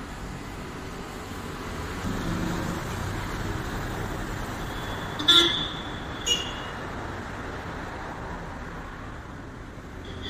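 Steady road traffic noise, swelling as a vehicle passes about two seconds in. Just past the middle come two short, sharp high-pitched sounds about a second apart, the first the loudest.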